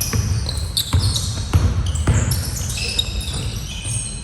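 A basketball being dribbled on an indoor court: thumps about half a second apart, mostly in the first half. Short high squeaks of players' shoes on the floor run through it, and voices are faint.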